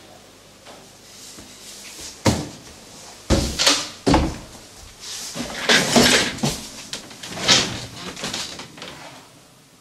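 A door clicking open about two seconds in, then a series of knocks, footfalls and rustling as someone drops onto a bed and moves about on the bedding.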